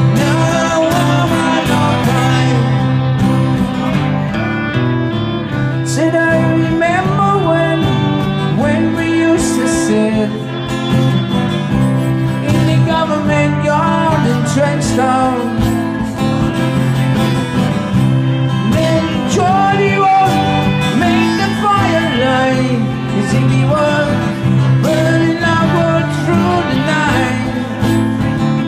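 Live folk-style song: strummed acoustic guitar accompaniment with a voice carrying the melody.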